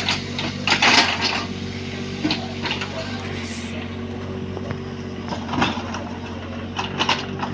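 Bobcat 322 mini excavator's diesel engine running steadily under work, with a few short, loud clanks and scrapes from the machine about a second in and again near the end.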